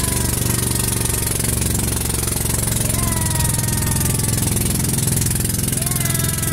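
Outrigger boat's inboard engine running steadily under way, a loud even drone with a rapid regular beat.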